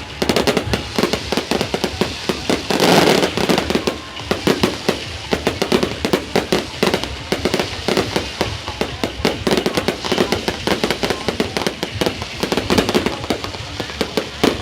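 Fireworks display: a dense, continuous barrage of rapid bangs and crackles, many per second, heaviest about three seconds in.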